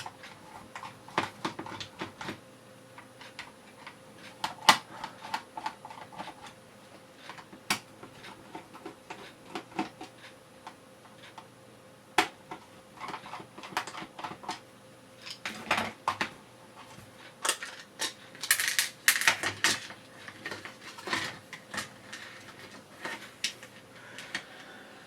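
Screws being undone from the plastic case of a carbon monoxide alarm and the case being opened by hand: irregular small clicks, taps and plastic rattles, busiest late on.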